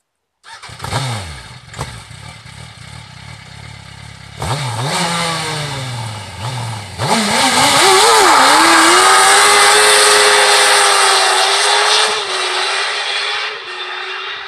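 Smart car fitted with a Yamaha R1 inline-four motorcycle engine: three or four sharp revs that fall away, then a hard launch with the pitch climbing and dipping once at an upshift, holding high revs as it pulls away and fades.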